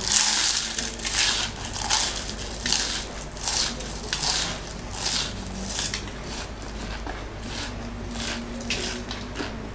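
Close-miked crunching and chewing of crispy fried lumpia shanghai, with crunches about every 0.8 s that grow fainter toward the end.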